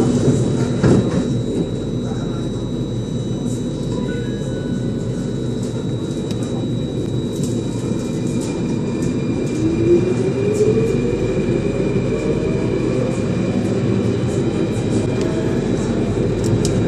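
Circle Line metro train pulling away from the platform, heard from inside the front car: a steady low rumble, with a whine rising in pitch from about halfway through as the train picks up speed.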